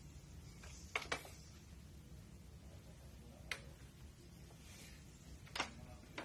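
Quiet indoor room tone with a steady low hum, broken by a handful of short, sharp clicks: two close together about a second in, one at about three and a half seconds and a louder one near the end.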